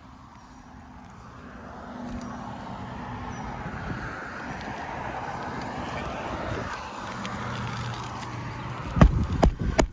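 A vehicle passing by: a rushing noise swells over a few seconds and fades, with a low engine hum toward the end. Near the end come a few sharp knocks.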